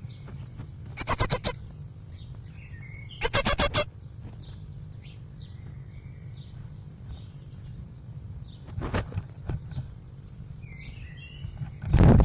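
Great tit calls close to the nest-box microphone: two loud rattling bursts of rapid pulses, about a second and three seconds in, and a weaker rattle later. Faint calls of other birds come from outside, over a steady low hum, and near the end a loud scuffle as the bird in the entrance hole leaves it.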